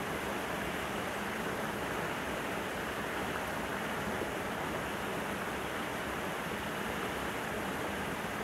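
A steady, even rushing noise with no distinct sounds in it.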